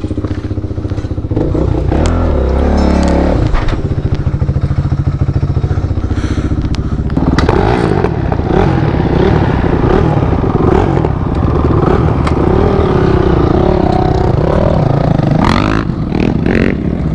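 Motorcycle engine running under way, its pitch rising and falling with the throttle, and a brief rev near the end.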